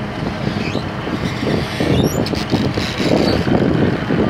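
A fishing boat's engine rumbling at sea, with wind buffeting the microphone.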